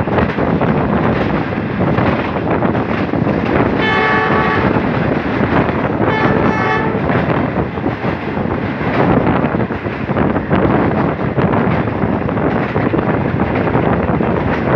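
A passenger train running on the rails with wind rushing past, heard from an open window of a moving coach; the locomotive's horn sounds two short blasts, about four and six seconds in.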